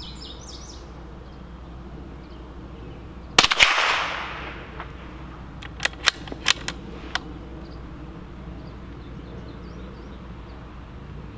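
A single .22 LR shot from a Bergara B-14 bolt-action rifle, with a short echo fading over about a second. About two seconds later come a quick run of sharp metallic clicks, the bolt being worked to chamber the next round.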